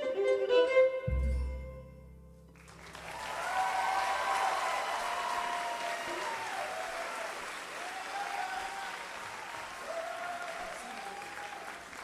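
A bluegrass band's fiddle-led tune ends about a second in on a low final thud. After a short lull the audience breaks into steady applause with cheering.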